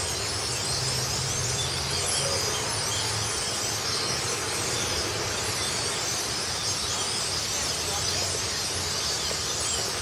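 Large flock of black birds gathered in trees, chattering all at once: countless overlapping high calls run together into a steady, loud din. A low steady hum runs underneath.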